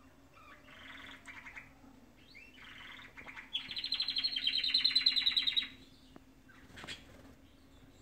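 Domestic canary singing: two short warbling phrases, then a loud, rapid trill lasting about two seconds from about three and a half seconds in, and a single short call near the end.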